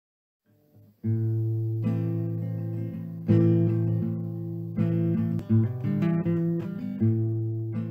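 Intro music on acoustic guitar: strummed chords starting about a second in, a fresh chord struck every couple of seconds and left to ring.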